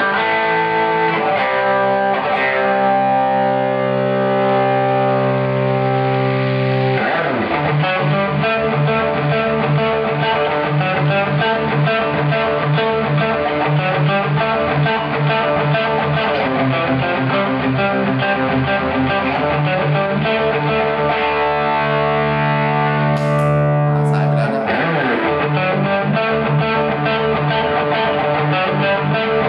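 Electric guitar played through distortion with the compressor pedal bypassed: a few held distorted chords, then a fast, rhythmic riff. About 23 seconds in there is a sharp click, where the Fender The Bends compressor pedal is switched on, and the riff carries on through the compressor.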